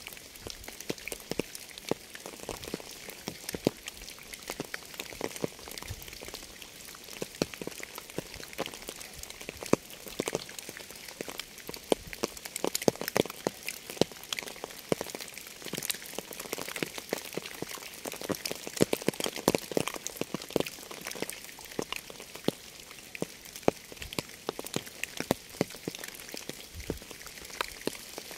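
Rain falling steadily onto a surface: an even hiss with many separate, sharp raindrop impacts throughout.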